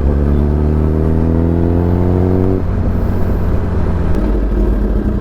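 Engine running with a steady low rumble. Over it, a pitched note climbs slowly for about two and a half seconds and then cuts off suddenly.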